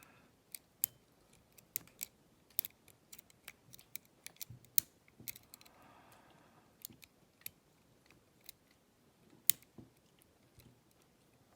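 Lock pick and tension wrench working the pins of a Zeni 850 cabinet lock during single-pin picking: irregular sharp clicks and ticks, a few much louder than the rest.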